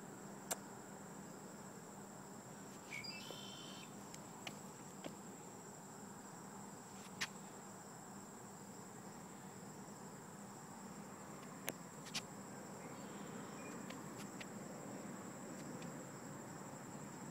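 Faint outdoor ambience carried by a steady, high-pitched insect trill that never breaks, with a few sharp clicks and a brief chirp about three seconds in.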